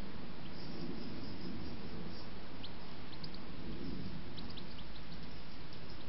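Faint, short, high bird chirps, scattered mostly through the second half, over a steady background noise.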